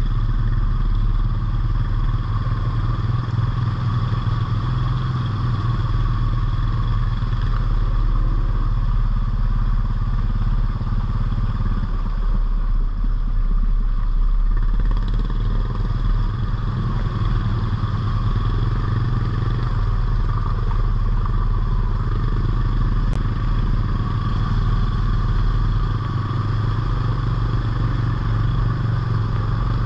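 ATV engine running steadily under way, with an easing of the engine note about halfway through before it picks up again, and some rattling clatter.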